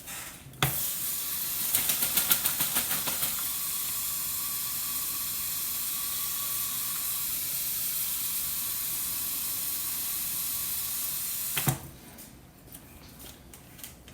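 Kitchen tap running water into a plastic bag of skewers to soak them. It comes on a little under a second in, splashes unevenly for the first couple of seconds, then runs as a steady rush until it is shut off abruptly near the end.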